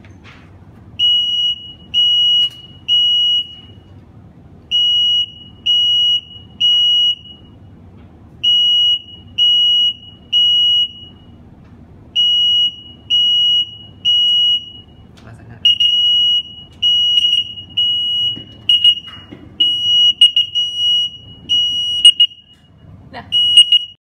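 Interlinked smoke alarm sounding its evacuation pattern: a loud, shrill, steady-pitched beep three times, a pause, then three more, repeating. In the last third the beeps crowd together into near-continuous beeping, with a few knocks among them.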